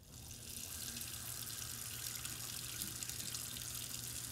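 Water running steadily in a bathroom, a continuous rush that starts suddenly.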